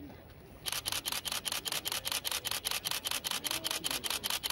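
Camera shutter firing in a rapid continuous burst, about eight clicks a second, starting under a second in.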